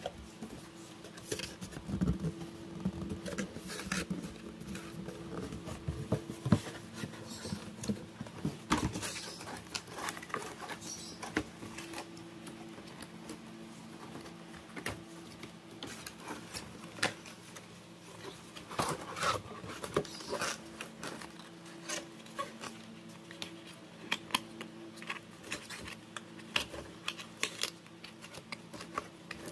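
Cardboard Nike shoe box and its paper insert being handled: scattered rustles, scrapes and light taps, with a faint steady hum underneath.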